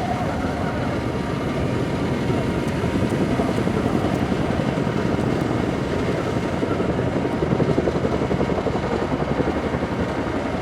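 CH-47J Chinook tandem-rotor helicopter in flight: rapid rotor-blade chop over the whine of its turbine engines, growing louder to a peak about three-quarters of the way through, then easing slightly.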